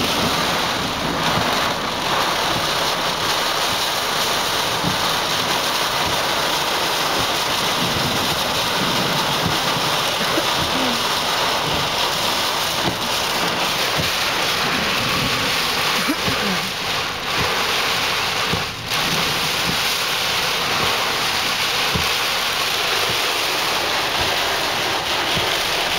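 Torrential rain pouring onto a pulled-over car, heard from inside the cabin: a steady, dense hiss with no let-up.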